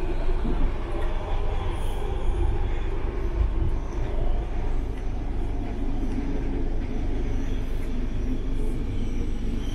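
Steady low rumble of a moving passenger train, heard from inside a sleeper compartment.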